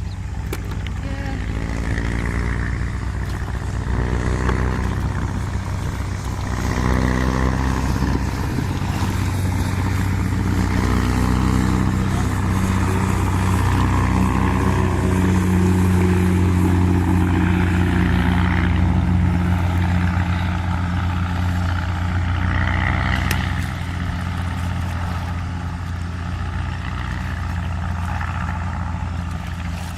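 An engine running steadily, growing louder about a quarter of the way in and easing back again near the last quarter.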